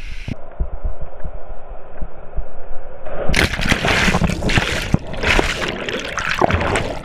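Muffled rumbling and knocking from an action camera in a jumper's hands as he drops. About three seconds in, a loud splash, then rushing, bubbling water as the camera plunges underwater in the pool.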